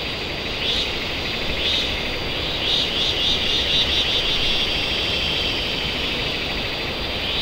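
Steady outdoor background: a continuous hiss with a high buzzing band that swells in short pulses about once a second.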